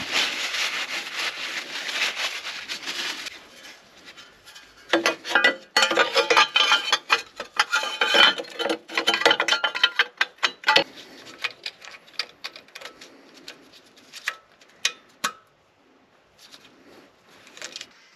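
Paper towel rubbing and crinkling as oil is wiped from around a freshly hand-tightened oil filter and the oil pan, in two spells with many sharp little clicks and taps, thinning out to scattered clicks later.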